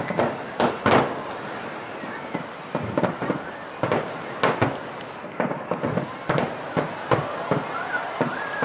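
Fireworks display: shells bursting in an irregular rapid series, about twenty sharp bangs with a steady rumbling haze between them.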